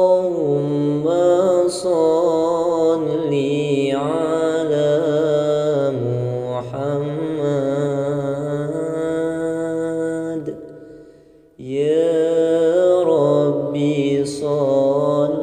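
A man's voice chanting pujian, the devotional praise sung before the Islamic prayer, in long drawn-out wavering notes. The voice fades out about ten seconds in and starts again a second later.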